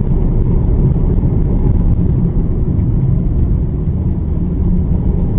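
Steady low rumble of a car on the move, engine and road noise picked up by a dashcam inside the cabin.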